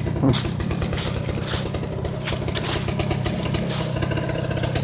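Small motorcycle engine running steadily, with a hiss that comes and goes about twice a second.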